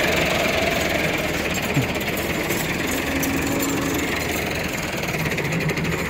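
Diesel tractor engine running steadily under load.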